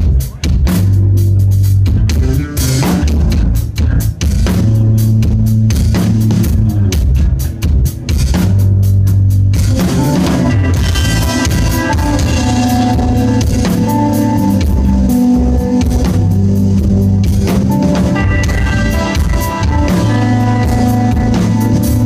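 Live rock band playing loudly: electric bass and drum kit carry the first half, and an electric guitar melody of held notes comes in about ten seconds in.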